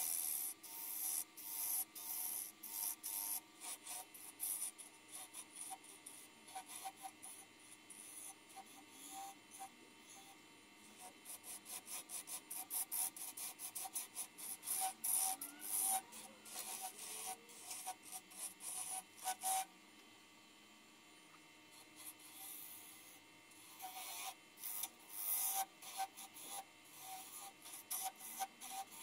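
A freshly sharpened turning gouge cutting a spinning English yew blank on a wood lathe, in many short scraping cuts one after another, over the steady hum of the lathe. The cutting pauses for a few seconds past the middle.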